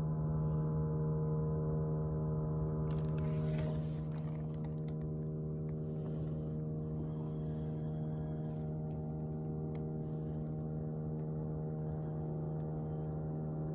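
Steady low-pitched hum with a stack of unchanging overtones, of unseen origin, heard with no trucks or boats around; the uploader guesses it is the so-called 'Earth hum'. A brief hiss cuts across it about three seconds in.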